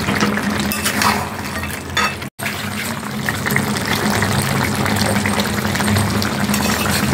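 Chicken curry bubbling and sizzling as it simmers in a metal kadai, in the liquid released by the chicken. In the first two seconds a metal spatula stirs and scrapes through it, and the sound drops out for a moment at an edit just after two seconds in.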